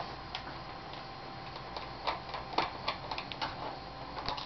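Small screwdriver working the screen bezel's cover screws on a laptop: a run of irregular light clicks and ticks of metal on screw and plastic, bunched in the middle and again near the end.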